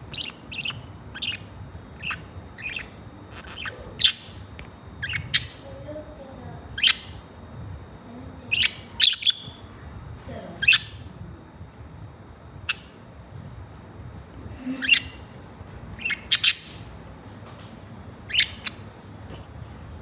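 Budgerigars chirping: short, sharp, high chirps come every second or so, some of them loud.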